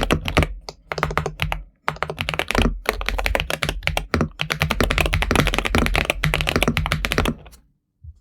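Typing on a GMK81 mechanical keyboard fitted with Akko V3 Cream Yellow Pro linear switches: rapid, steady keystrokes with a brief break a little under two seconds in. The typing stops shortly before the end.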